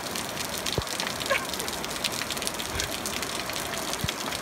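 Fast-flowing floodwater rushing steadily through woodland during heavy rain, with many small raindrop ticks over the water's rush.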